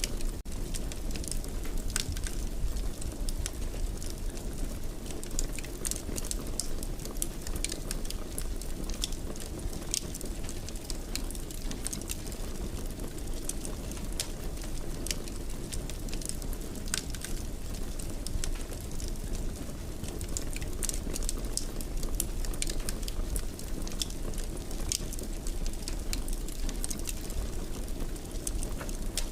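Wood fire crackling in a fireplace: a steady low rumble with many scattered sharp pops and snaps.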